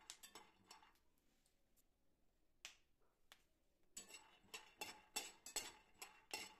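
Steel ladle stirring peanuts roasting in a nonstick pan: faint scattered clicks and scrapes of the spoon and nuts against the pan, sparse through the middle and coming closer together over the last two or three seconds.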